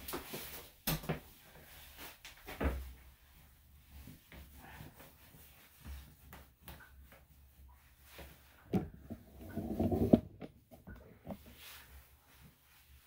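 A towel rubbing over a wet dog's coat, with a few sharp knocks against the grooming table. The rubbing comes in a loud scrubbing burst about nine to ten seconds in.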